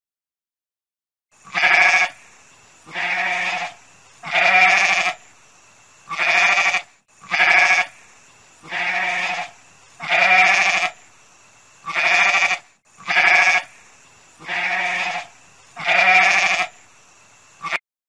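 A goat bleating again and again: about eleven calls of under a second each, one roughly every one and a half seconds, beginning about a second in.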